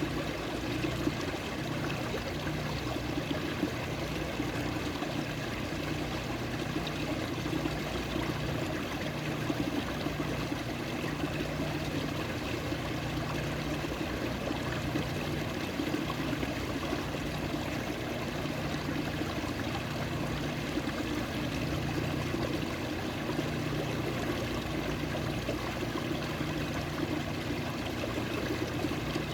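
Running water, flowing and trickling steadily without a break.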